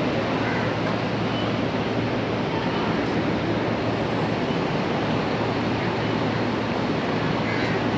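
Steady city street ambience: a continuous, even wash of traffic and street noise with no single sound standing out.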